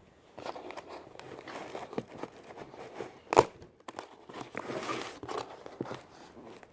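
Crinkling, rustling handling noise with scattered small clicks, and one sharp knock about three and a half seconds in.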